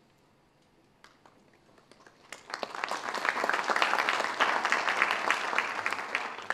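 Audience applauding. A few scattered claps about a second in swell into full applause from about two seconds in, which stops quickly near the end.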